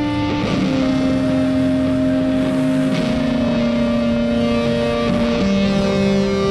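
Background guitar music: long held notes that step to a new pitch about every two to three seconds.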